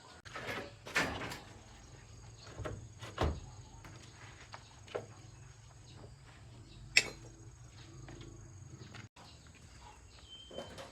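Scattered knocks and clicks, about half a dozen spread irregularly, the sharpest about seven seconds in, over a low steady hum.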